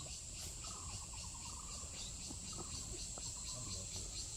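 Steady high-pitched chorus of insects with a fast, even pulse, over a faint low rumble.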